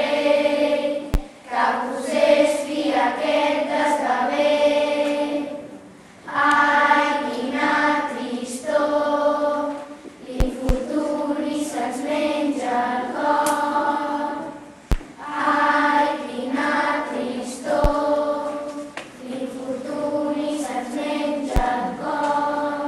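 A group of children singing together as a choir, in phrases of held notes with short pauses between them.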